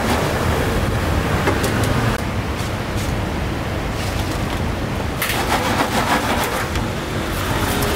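Steady hiss and rumble of a street food stall at work: oil frying in the open deep fryer mixed with passing traffic, with scattered metallic clinks and clatter as a wire strainer and tongs handle the sweet potato balls.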